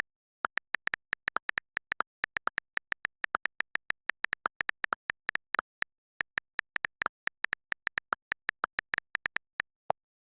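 A rapid series of short, high electronic blips, about five or six a second, with a brief pause a little past the middle.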